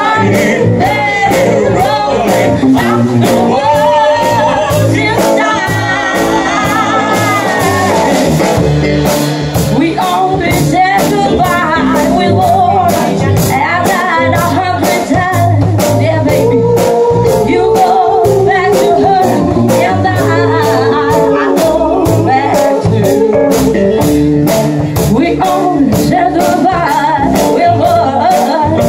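Live rock band playing: singing over electric guitars, bass and drums, with a steady beat.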